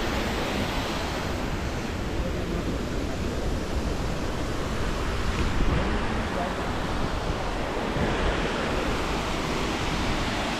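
Steady rushing of a waterfall, with wind rumbling on the microphone.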